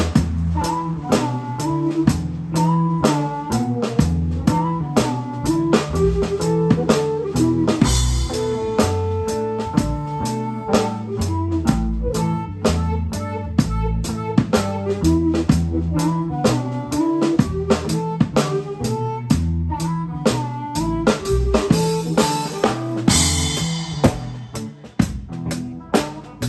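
A live band playing: a drum kit keeps a steady beat under a harmonica played through a handheld microphone. There are cymbal crashes about a third of the way in and again near the end.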